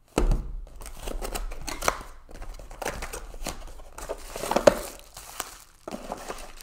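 Cardboard box being opened by hand and a bubble-wrapped item pulled out: irregular rustling, crinkling and scraping of cardboard and plastic wrap, with low handling thuds early on and a sharp click about two-thirds of the way through.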